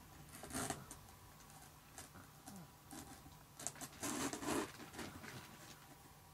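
A cat scuffling against a cardboard box: scattered scrapes and rustles of paws and body on cardboard, with the longest and loudest a little after four seconds in.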